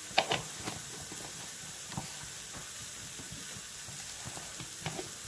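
Chopped onions frying in a pan with a steady sizzle, and a wooden spatula knocking and scraping against the pan a few times: near the start, about two seconds in, and near the end.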